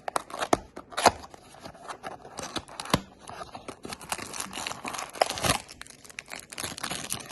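Packaging being torn open and crinkled by hand, a run of sharp crackles and clicks with one loud snap about a second in.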